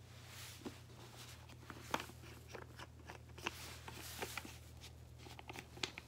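Faint, irregular clicks and light taps with soft rustling between them, over a low steady hum: close-up handling noise at the microphone.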